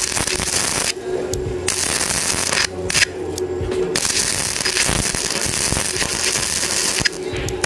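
Electric arc welding on steel: the arc's steady crackling sizzle, broken by short pauses about a second in, around three seconds and near the end, when a low hum is heard.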